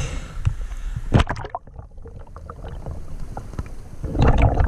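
Water splashing and sloshing against a camera at the surface of a river, with a sharp splash about a second in. The camera then goes underwater and the sound turns muffled, until loud underwater bubbling and sloshing starts near the end.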